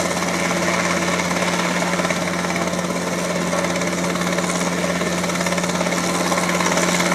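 Robinson R22 Beta II helicopter running: a steady drone of its piston engine and rotor with a fast, even chop.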